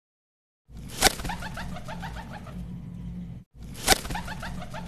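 A bird call: a quick run of short, repeated rising notes. The same clip plays twice in a row, each time opening with a sharp click.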